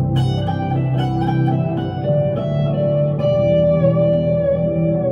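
1965 Fender Stratocaster electric guitar played through an amp, a slow melodic lead: a picked note right at the start, then held notes that waver with vibrato and bends from about three seconds in, over steady low notes.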